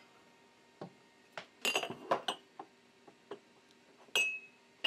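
Ceramic coffee mugs clinking as they are handled and set down upside down on a countertop: about eight separate light clinks, one near the end ringing briefly.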